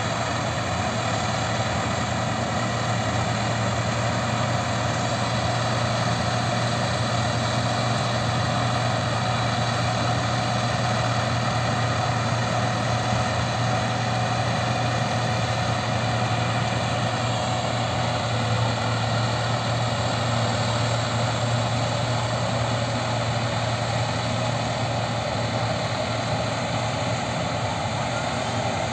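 Rice combine harvester running steadily while harvesting, its engine and threshing drum making a constant, even drone with many steady overtones.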